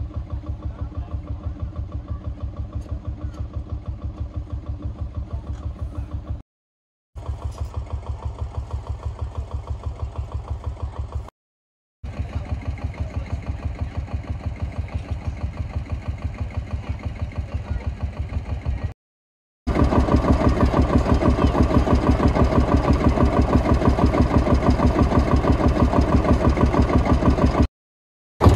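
An engine running at a steady, even beat, heard in four separate takes cut together; the last take is louder.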